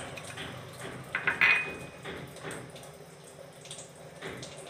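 A small spoon clinking and tapping against a glass bowl and a steel pot as food-colour powder goes into gram-flour batter. The loudest is a clink with a short ring about a second and a half in, followed by fainter taps and soft scraping as the colour is stirred into the batter.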